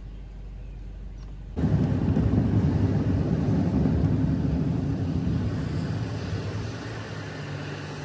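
A low steady hum, then suddenly, about a second and a half in, the road noise of a car heard from inside the cabin while driving on a rain-wet road. The tyre and engine noise is even at first and eases off near the end.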